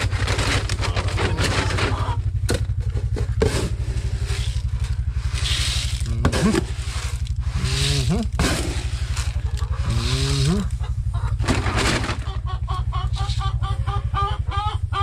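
Hens clucking and calling, with a few short rising calls from about six seconds in and a run of quick repeated clucks near the end. Scattered rustling and clicks and a steady low hum run underneath.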